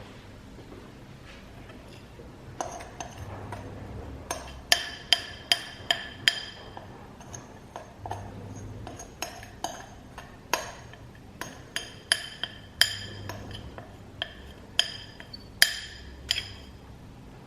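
A spoon clinking and tapping against a bowl, about twenty sharp ringing clinks at irregular intervals, as melted white chocolate is scraped out over the cake.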